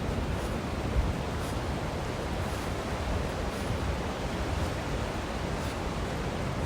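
Steady wash of ocean surf mixed with wind rumbling on the microphone.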